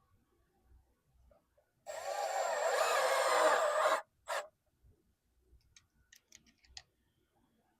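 Power drill running for about two seconds, its motor pitch wavering as it drives a screw. A short second burst follows, then a few light clicks.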